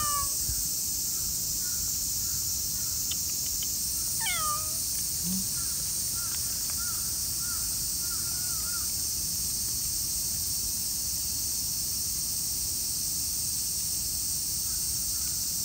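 A steady high-pitched drone runs throughout, with small birds chirping through the first half. About four seconds in, a tabby cat gives one short falling meow.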